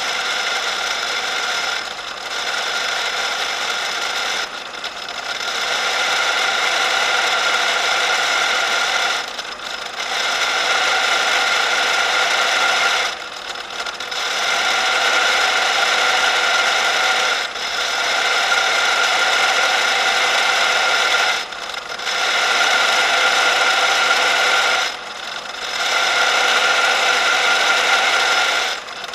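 A power drill's twist bit boring into a steel flat bar, giving a steady grinding cutting noise with a whine-like edge as curled steel chips pile up. The noise dips briefly every three to four seconds.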